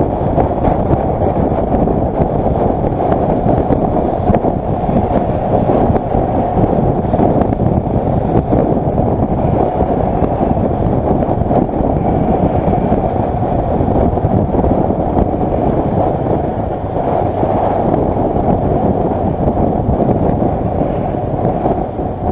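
Steady wind rush on the microphone mixed with the engine and road noise of a Kawasaki Versys motorcycle riding at road speed.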